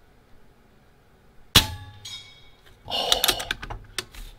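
A .22 PCP air rifle shot with the pellet striking a steel target, a sharp crack followed by a brief metallic ring. A shorter clattering noise with a few clicks follows about a second and a half later.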